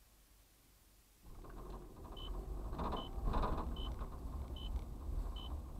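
Low rumble of a car driving, picked up by a dashcam inside it, coming in suddenly about a second in. A short high beep repeats a little more than once a second over it.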